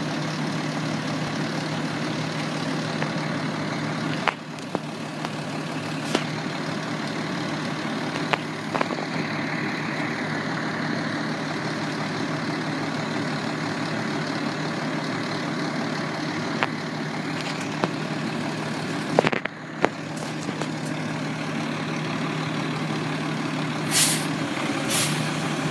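Hook-lift roll-off truck's diesel engine running steadily while its hydraulic hook arm works to pull a steel dumpster aboard. Near the end come a few short, sharp hisses of air.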